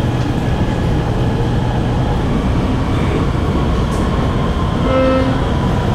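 Steady running noise of a Guangzhou Metro Line 14 train heard from inside the car as it moves through a station, a dense rumble of wheels on rail and drive equipment. A brief higher tone sounds about five seconds in.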